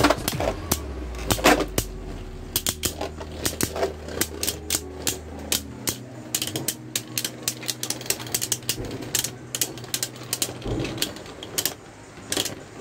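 Helios Volcano and Hyperion Burn Beyblade Burst tops spinning in a plastic stadium, clashing with many sharp clicks and knocks over a steady low spinning hum. The clicks come thickest in the first couple of seconds, and the hum shifts in pitch about halfway through.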